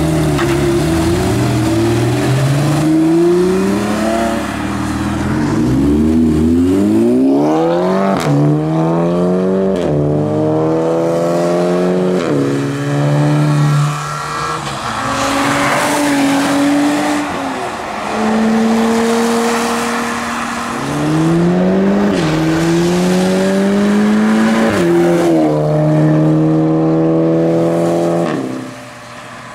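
Sports cars accelerating hard away one after another: the engines rev and climb in pitch, drop at each upshift and climb again, several times over. A Porsche Cayman's flat-six starts it off with a brief tyre squeal as it swings out, followed by a Mk1 Mazda MX-5 and an Audi TT pulling away on a wet road.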